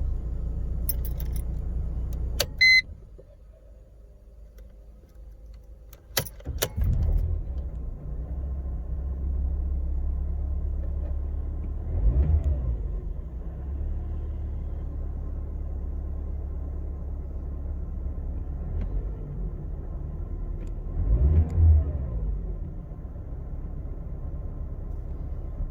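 Mercedes W203 2.0 petrol four-cylinder engine idling roughly from a cold start. A couple of seconds in it is switched off with a click and a short beep. About four seconds later it is cranked and restarts, then idles unevenly, with the revs briefly swelling and falling twice. The owner describes this cold-start rough idle, with a smell of petrol, as a fault that the diagnostics do not pick up.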